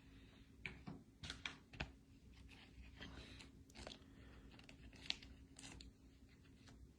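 Trading cards and a foil pack wrapper handled faintly: scattered soft crinkles and clicks, over a steady low hum.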